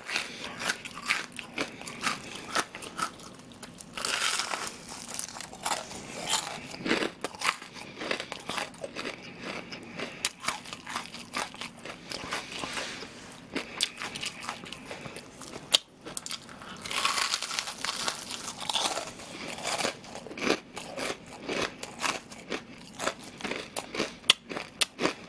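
Crunching and chewing of a crispy deep-fried breaded pork cutlet (tonkatsu), a continuous run of crackly bites and chews of the crust.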